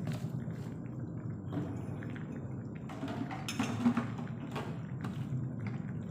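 Cooking in a pan: a steady low rumble under wet, liquid sounds, with scrapes and clicks of a utensil and one sharp knock about four seconds in.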